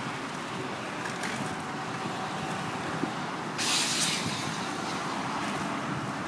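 Steady rushing noise of riding a bicycle, with wind on the microphone and tyres on the path. A brief, sharp hiss comes about three and a half seconds in.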